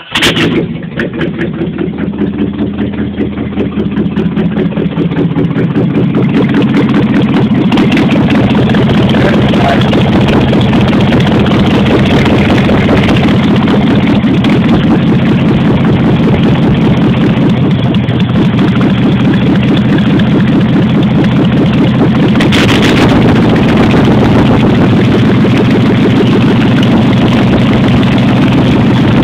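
1989 Jeep Grand Wagoneer's AMC 360 V8 with a two-barrel carburetor, its exhaust manifolds off so it runs straight out of the open head ports, firing up and running loud. The level flutters unevenly for the first few seconds, then it settles into a steady idle.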